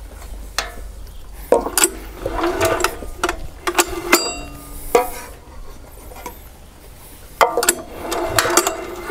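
Socket ratchet clicking in two quick runs as the valve-cover bolts are tightened down. Between the runs come a few sharp metallic clinks of the tool on the bolts.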